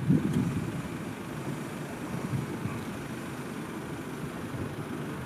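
Gusting wind buffeting the microphone: an irregular low rumble, strongest at the start and then settling to a steadier level.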